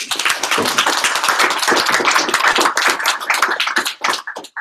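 Audience applauding: dense clapping that thins to a few scattered claps and stops near the end.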